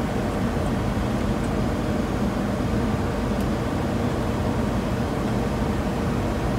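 Steady cockpit noise of an Embraer E190 airliner on final approach: an even rumble of airflow and its turbofan engines, with a faint low hum.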